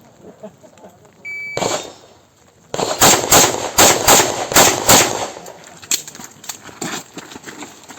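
A handgun competitor's stage. A short electronic shot-timer beep sounds about a second in, and a single pistol shot follows. From about three seconds in comes a rapid string of about a dozen shots, roughly three a second, then fainter shots.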